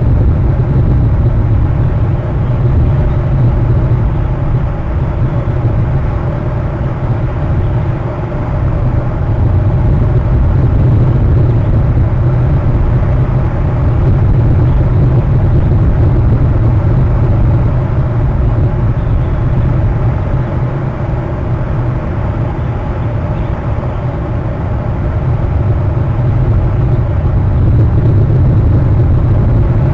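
Steady low rumble of wind buffeting an outdoor camera microphone, swelling and easing every few seconds.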